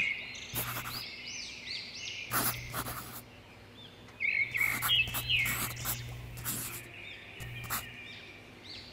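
Small birds chirping: many quick, arched chirps repeated throughout, with a few short scratchy noises among them.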